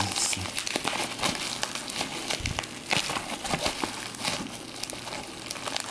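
Bubble wrap packaging crinkling and crackling as it is handled and pulled off a small taped cardboard box, with many small scattered clicks.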